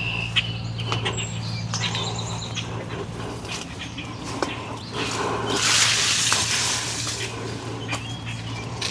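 Songbirds chirping and singing, with scattered light clicks and a low steady hum underneath. About five and a half seconds in, a rushing hiss swells for about a second and a half and is the loudest sound.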